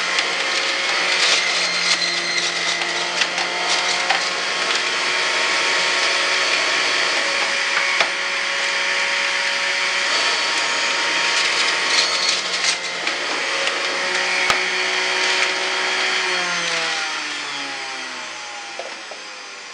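Electric centrifugal juicer running loud and steady with a whine while leafy greens are pushed down the chute, shredding with crackles. Near the end it is switched off and the motor winds down with a falling whine.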